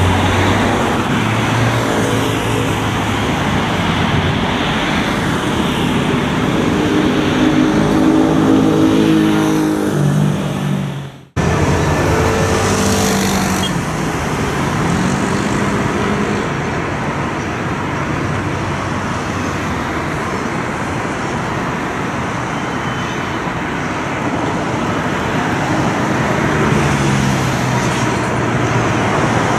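Dense city street traffic: car, van and bus engines running, with one engine's pitch rising as it pulls away about six to ten seconds in. The sound drops out briefly about eleven seconds in at a cut, then the steady traffic noise goes on.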